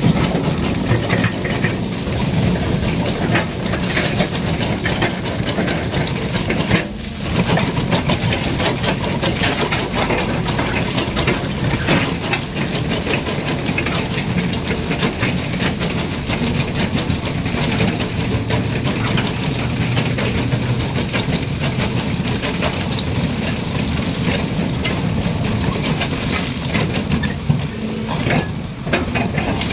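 Doosan 490-class excavator working a trencher attachment: the diesel engine runs under load beneath a continuous clattering, ratcheting rattle from the trencher cutting the ground. The sound dips briefly about seven seconds in and again near the end.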